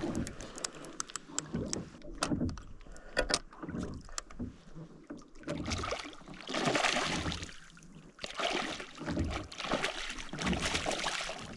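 A hooked fish splashes and thrashes at the water's surface beside a rowboat in two loud bouts, from about six seconds in and again from about eight seconds. Before that comes a run of sharp clicks as the trolling reel is wound in.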